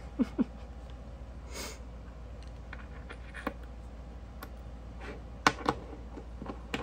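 Small metal parts of a copper fidget spinner being handled, its bearing and button caps, giving a few sharp little clicks, two of them close together about five and a half seconds in, over a low steady hum.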